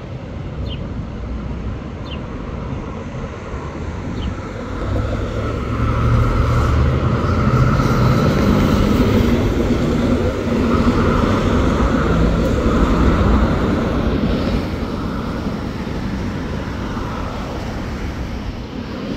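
Fire engine driving past: its heavy engine and tyres build up, are loudest for several seconds in the middle, then ease back as it moves away, over steady road traffic.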